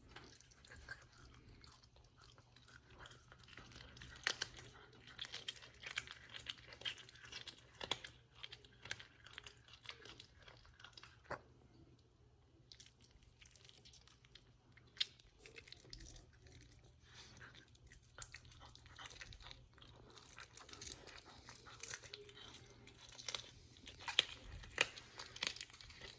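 A serval chewing and crunching raw quail held in a hand: an irregular run of faint wet crunches and clicks, with a short lull about halfway through.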